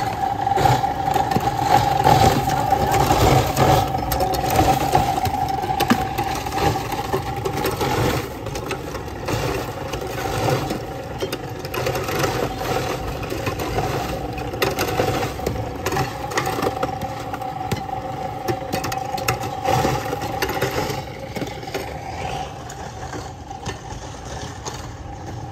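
A motor running steadily with a hum, louder for the first several seconds, with frequent clinks and rattles over it.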